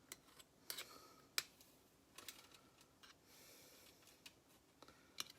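Faint, scattered sharp clicks and taps from a pierogi maker being handled as a filled pastry is squeezed shut.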